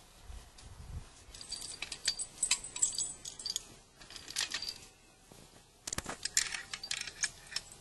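Metal of a horse-drawn tined cultivator and its harness clinking and jingling as the horse pulls it through the soil, in irregular bursts of sharp clinks with a high ring: about a second in, around four seconds and around six seconds.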